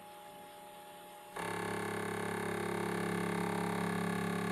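Commodore CBM 8050 dual floppy drive formatting a disk: a steady buzzing hum made of several held tones, starting about a second and a half in and cutting off abruptly near the end.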